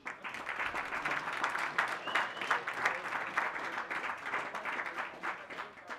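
Audience applauding with dense, steady clapping that thins out near the end.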